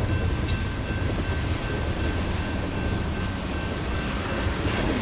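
Freight train of tank cars rolling past: a steady rumble of steel wheels on the rails, with a faint steady high tone and an occasional click.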